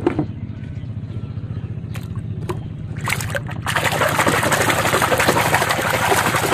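A few light clicks of plastic toys being picked up, then from about four seconds in, continuous loud splashing and sloshing as a hand swishes a muddy toy back and forth in shallow river water.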